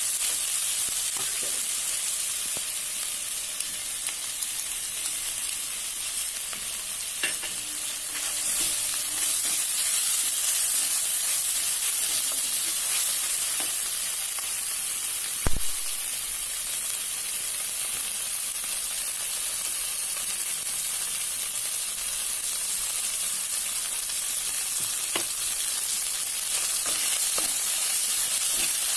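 Oil sizzling steadily in a cooking pan as food fries, with light clicks of a spatula being stirred, and one sharp knock about halfway through.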